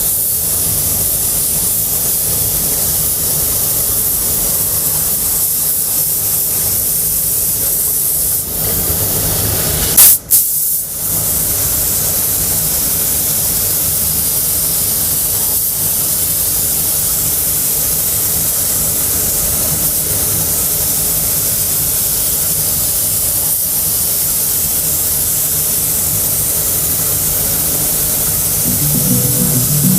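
Compressed-air paint spray gun spraying, a steady loud hiss of air and atomised paint. About ten seconds in there is a single sharp loud pop and a brief break before the hiss resumes.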